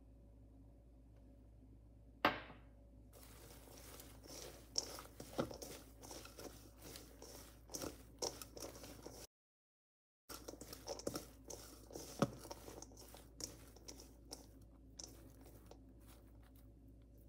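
Sliced shallots being tossed and squeezed by hand in a stainless steel bowl: a stream of crisp rustling and crackling with many sharp little clicks. A single sharp knock sounds about two seconds in, and the sound drops out to total silence for about a second near the middle.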